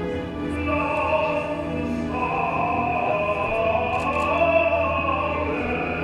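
Music with a sustained operatic-style high voice holding long notes over a steady low drone, the voice coming in about half a second in.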